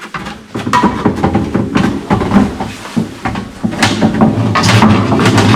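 A canoe and paddle knocking and scraping inside a culvert as the boat is pushed through, the knocks echoing in the enclosed pipe. A low steady hum builds near the end.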